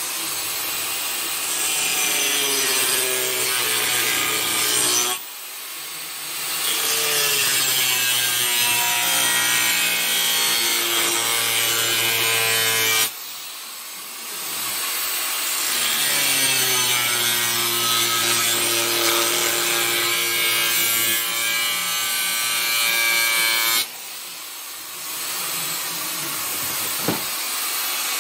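Angle grinder cutting through steel plate, its motor whine sliding in pitch as the disc bites into the metal. The cutting breaks off briefly three times, about five, thirteen and twenty-four seconds in, and each time resumes.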